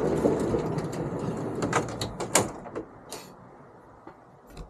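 Heavy-duty drawer slide of a truck-bed bike slide rolling along its metal runners, a rumbling slide noise that fades over the first second and a half. It is followed by several sharp knocks and clicks of the slide's metal frame around two to three seconds in.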